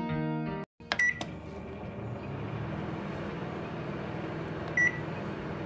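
Microwave oven: a couple of clicks and a short beep about a second in, then a steady hum of it running, with another short beep near the end.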